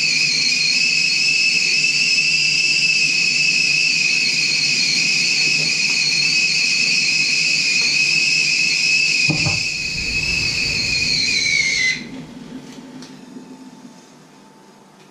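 Enamel stovetop whistling kettle at the boil, giving one loud, steady high whistle. A low thump comes about nine seconds in, and near twelve seconds the whistle dips slightly in pitch and cuts off abruptly as the kettle is lifted off the heat to pour.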